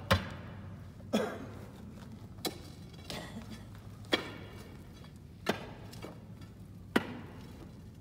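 Hard strikes against the rock-salt wall of a mine, chipping pieces of salt off. About seven sharp knocks come irregularly, a second or so apart, each with a short echoing ring.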